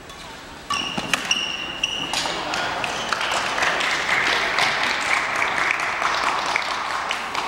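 A quick badminton exchange: sneakers squeaking on the hardwood gym floor and sharp racket strikes on the shuttlecock, then the crowd breaking into cheering and applause from about three seconds in, which carries on.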